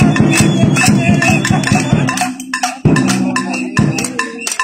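Rhythmic hand percussion: fast knocking and rattling strikes over a steady low droning tone, which drops out briefly a little past the middle.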